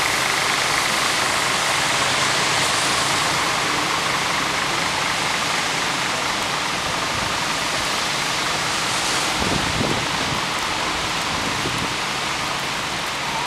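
Steady hiss of heavy rain mixed with road traffic on a wet street, coaches and cars driving over the wet road. A brief louder swell comes about ten seconds in.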